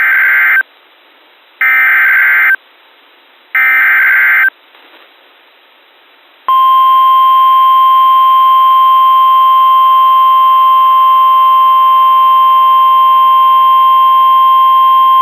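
NOAA Weather Radio Emergency Alert System signal: three short bursts of SAME digital header data, about a second each and a second apart, then a steady 1050 Hz warning alarm tone held for about nine seconds. The sequence signals the start of a new warning broadcast, here a severe thunderstorm warning.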